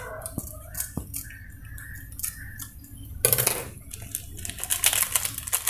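Scissors snipping open a paper spice sachet, two sharp snips. About three seconds in comes a sudden burst of rustling and crackling as the sachet is shaken out over a cooking pan.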